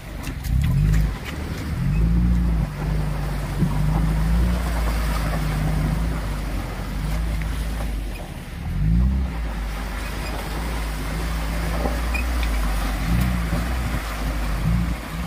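Maruti Gypsy's petrol engine revving up and easing off again and again as it drives through a shallow, rocky river, with water splashing and rushing around the wheels.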